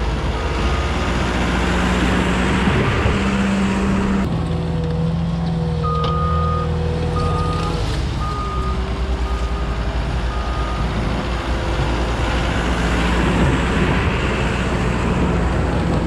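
Backhoe loader's diesel engine running steadily under load while it works snow with its front bucket. Its reversing alarm beeps in short single tones, about once a second, through the middle of the stretch as it backs away.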